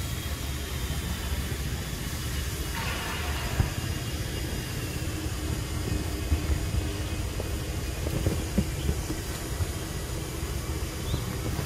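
Steady low rumbling outdoor background noise with faint steady high-pitched tones and a few soft clicks.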